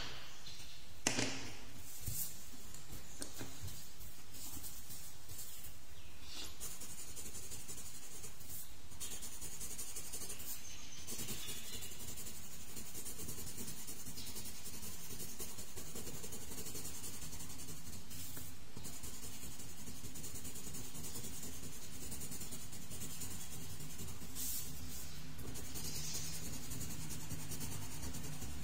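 A couple of sharp clicks about a second in, as wooden colored pencils knock together while one is picked out, then a pink colored pencil scratching softly on paper as it shades, over a steady low hum.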